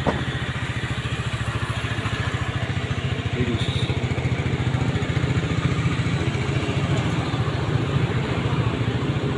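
Yamaha Fino scooter's single-cylinder four-stroke engine running steadily at idle, with an even, rapid pulse.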